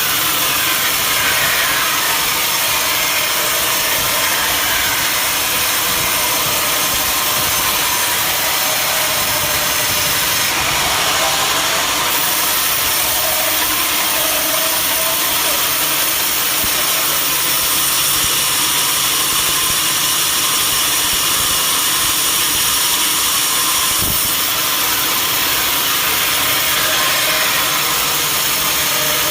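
Sawmill running steadily, its saw cutting through mahogany with a loud, unbroken mechanical noise.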